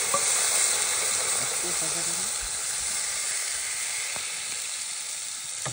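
Food sizzling in hot oil in a pan: a steady frying hiss that eases slightly toward the end.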